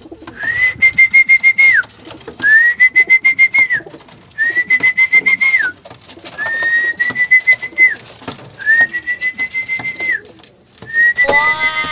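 Whistling: six long, steady high notes about two seconds apart, each sliding up at the start and dropping off at the end, over rapid clicks. It is a call cue for racing pigeons being trained to come down through a loft trap door.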